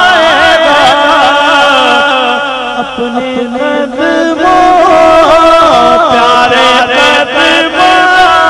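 A man singing an Urdu naat, a devotional poem, into a microphone, in long held notes that waver and turn in ornamented runs. It grows a little softer for a couple of seconds in the middle, then comes back to full strength.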